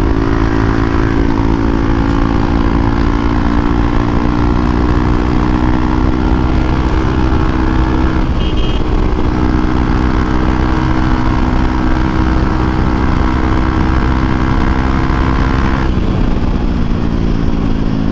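Hero Xpulse 200 4V's single-cylinder engine running through a Norifumi Noctus T5 aftermarket exhaust, the note held fairly steady with small rises and falls in pitch. The note dips briefly about eight seconds in and softens about sixteen seconds in.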